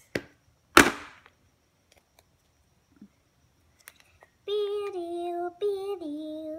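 A sharp, loud pop or knock about a second in, then a child singing two held notes near the end, each phrase stepping down in pitch.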